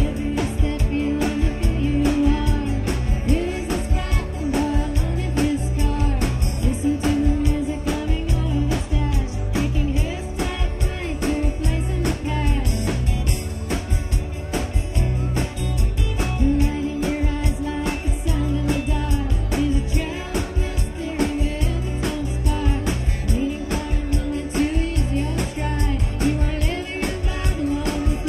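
Live rock band playing: a woman's singing voice over strummed acoustic guitar, electric guitars and drums with a steady beat.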